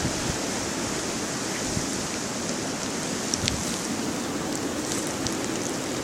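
Steady hiss of blizzard wind and blowing snow, with a couple of faint ticks in the middle.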